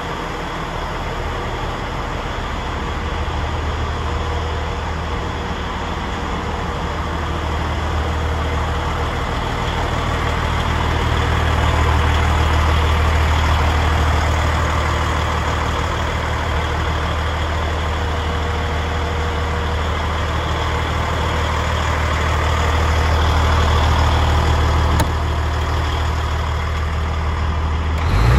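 DAF XF105 tractor unit's Paccar 510 six-cylinder diesel engine idling steadily. The hum swells a little around the middle and again near the end.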